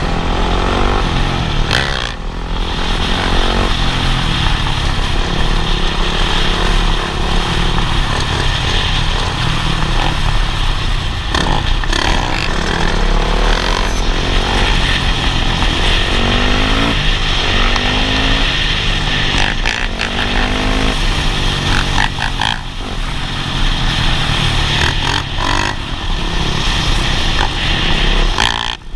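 Several dirt bike engines running at speed, their pitch repeatedly rising and dropping as the riders rev and shift, with wind buffeting the microphone.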